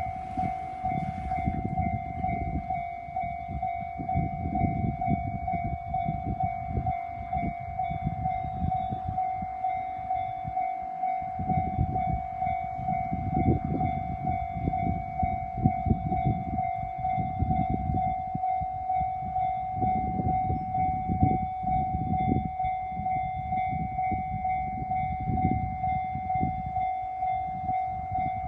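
Japanese railway level-crossing alarm ringing continuously as a steady, rapidly repeating electronic bell tone, over irregular low rumbling.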